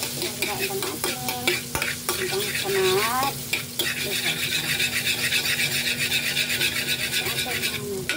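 Butter and cooking oil sizzling and bubbling in a metal wok while a metal spoon stirs and scrapes through it. The sizzle grows stronger about four seconds in and eases off near the end.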